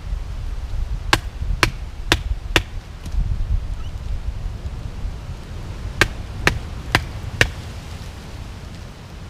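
Bark River Bushcrafter knife chopping with sharp strokes: four strokes about half a second apart, then after a pause another four. A low wind rumble runs underneath.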